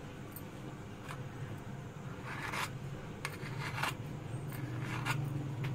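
Kitchen knife blade scraping against the rim of a stainless steel bowl as dough is trimmed off, a series of short scrapes, over a low steady hum.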